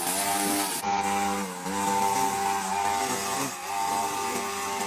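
A motor running steadily, its pitch dipping briefly several times as if loaded or throttled.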